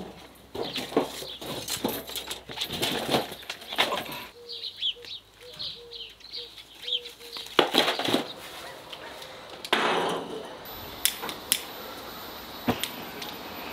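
A string of handling sounds: clattering and rattling of a metal wire frame and tools. In the middle a small bird chirps a short call over and over for a few seconds, and then comes a cluster of sharp knocks and a thud.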